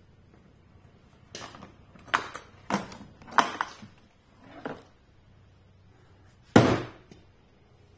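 Hard black plastic tool case being opened: a run of sharp clicks and clacks as its metal latches are snapped open and the hollow plastic shell is handled. A single louder thunk comes near the end as the lid swings open.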